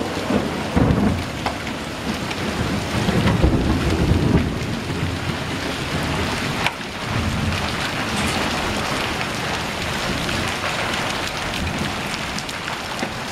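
Heavy rain mixed with hail falling steadily on pavement and roofs, with thunder rumbling low after a nearby lightning bolt: swells about a second in, again around three to four seconds, and more faintly around seven seconds.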